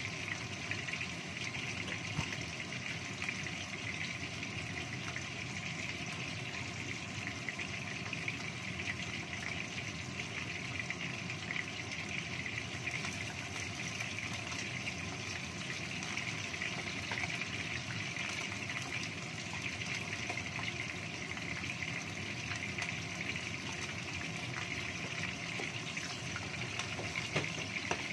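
Pieces of shark fish frying in hot oil in a wok: a steady sizzle with many fine crackles and pops.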